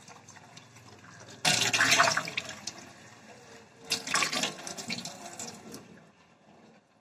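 Water in a sink splashing and running as small soft toys are washed in soapy water, in two loud spells: one starting suddenly about one and a half seconds in and another around four seconds, fading out near the end.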